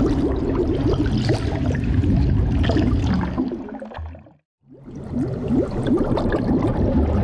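Underwater sound effect: dense bubbling with many small rising bubble chirps over a low rumble. It fades out about four seconds in, goes silent for a moment, and a similar bubbling underwater effect fades back in.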